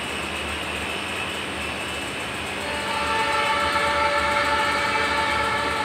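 Approaching train's locomotive air horn sounding one long chord of several notes, beginning about three seconds in over steady rumbling background noise. The horn is the warning blown for a road crossing.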